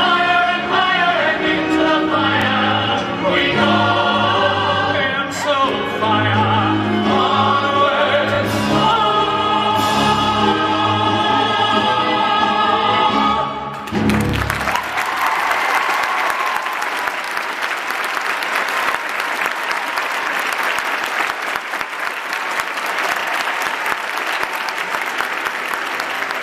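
A musical theatre cast sings in full chorus with a pit orchestra, ending the number on a final loud chord about fourteen seconds in. Audience applause follows.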